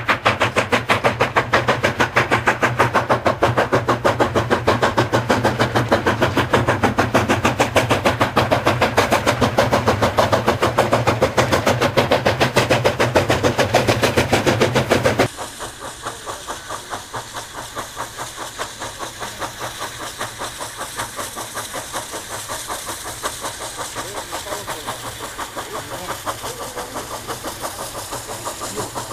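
QJ-class (Qianjin) 2-10-2 steam locomotive working hard, its exhaust chuffing in a fast, even rhythm. It is loud and close for the first half. About halfway through, the sound drops to a quieter, more distant locomotive still chuffing steadily, with more steam hiss.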